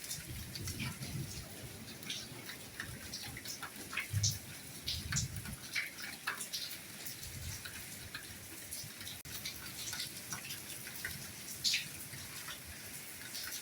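Steady soft rainfall, with many individual drops and drips ticking sharply over the hiss. A soft low rumble comes and goes in the first half.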